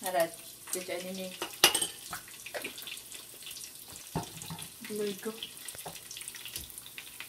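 A metal spoon clinking against a ceramic bowl and glass jar, and containers knocked down on a countertop as sauces are mixed. The sharpest click comes about one and a half seconds in, with a duller knock about four seconds in. A few brief bits of a woman's voice come between.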